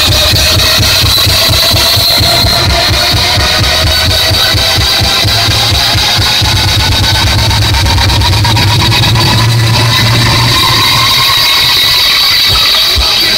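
Loud electronic music with heavy bass played through a car audio system's trunk-mounted subwoofers and horn tweeters, with sustained tones slowly rising in pitch over it.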